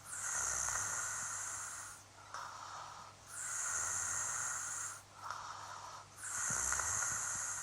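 A man snoring in his sleep: three loud, hissy snores about three seconds apart, each starting with a low rattle, with a quieter breath between them.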